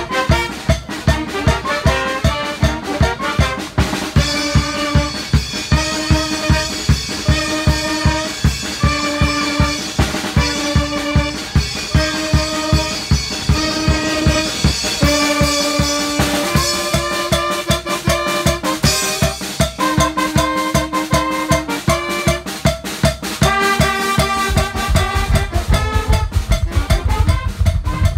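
Live carnival brass band of saxophones, trumpets, trombone and drum kit playing Tlaxcala carnival dance music: a steady drum beat under short, repeated horn phrases. A low rumble joins near the end.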